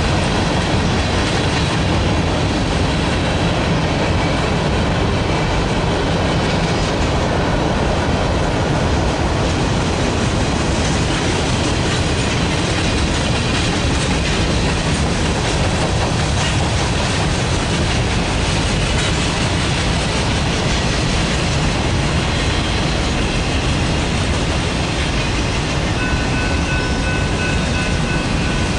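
Freight cars of a long freight train rolling past, a steady rumble with the clickety-clack of wheels over rail joints. A thin high squeal joins in near the end.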